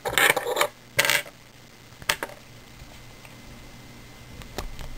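Metallic clinking and rattling of a brass pin-tumbler discus padlock being handled: a short rattle at the start, a sharp clink about a second in, two quick clicks about two seconds in, then faint ticks near the end.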